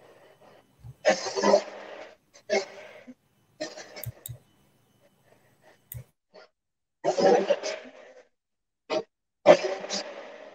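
Stick blender run in short bursts of about a second or less, six times, churning a thick spice paste. A few sharp knocks come in between.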